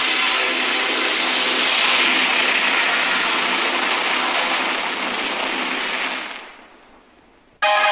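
Samsung logo animation's sound effect, run through a 'G Major' audio-effects edit: a steady rushing whoosh with faint held tones underneath. It fades away about six seconds in, and near the end the next logo's jingle cuts in abruptly with clear sustained notes.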